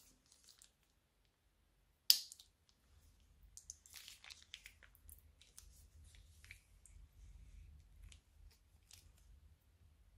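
Plastic piping bag crinkling as it is squeezed and slime is pushed out of it, with small crackly, squishy ticks. A single sharp click about two seconds in is the loudest sound.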